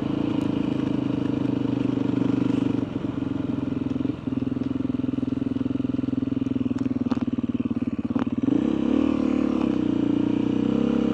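Motorcycle engine running at a steady speed while riding. After about eight and a half seconds its pitch rises and falls as the revs change.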